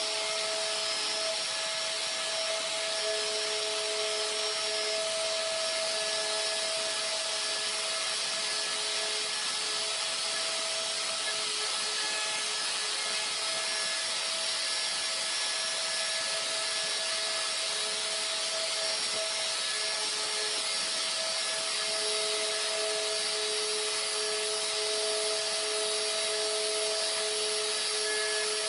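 A DeWalt router on a CNC gantry runs steadily, milling across an MDF spoilerboard, with a vacuum drawing dust through the hose on the brush boot. It makes a constant rushing noise with a steady high whine under it.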